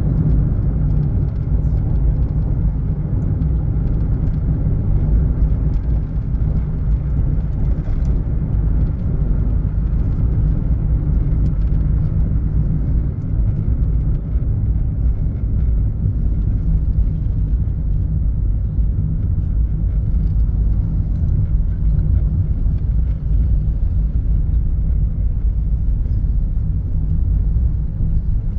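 Steady low rumble of a moving road vehicle and its road noise, unbroken throughout.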